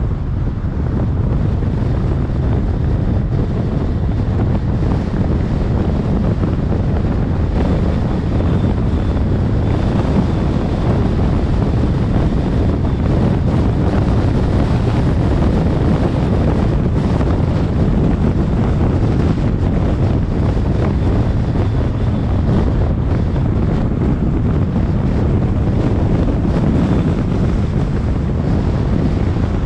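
Steady wind noise buffeting the microphone of a car-mounted camera as the car drives, with low rumble of tyres and traffic under it.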